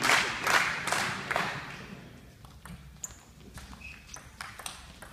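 Crowd clapping in rhythm, about two claps a second, fading out in the first second and a half. Then sharp, spaced clicks of a table tennis ball striking the table and the rackets in a rally.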